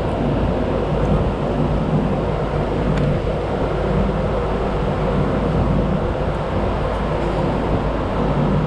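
Steady low mechanical running noise, a machine or motor running evenly with a low hum and no change in pace.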